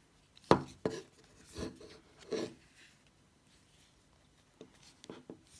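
Plastic handling noises from a sat-nav and its plastic mount parts being held and moved: four short knocks and rubs in the first two and a half seconds, then a few faint clicks near the end.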